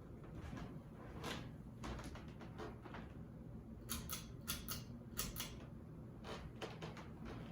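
Hunter Art Nouveau Medalist ceiling fan running on low speed with a faint low hum, while a series of light, sharp clicks comes in small clusters, most of them between about four and five and a half seconds in.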